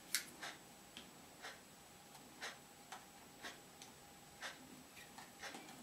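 Faint, sharp ticks at an even pace, about two a second with some beats skipped, over a faint steady high tone.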